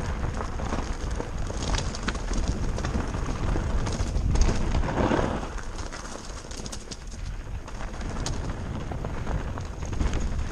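Mountain bike riding fast down a rocky trail: tyres crunching over loose stones and the bike rattling with many sharp clicks and knocks, over a steady low rumble of wind on the microphone.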